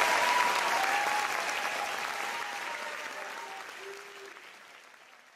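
Audience applause, fading out steadily to near silence.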